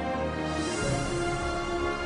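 Background music with held, sustained notes.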